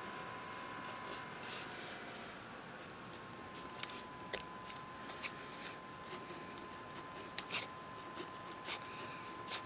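Pen strokes scratching on lined spiral-notebook paper in short, irregular strokes, sparse at first and more frequent from about four seconds in, over a faint steady high whine.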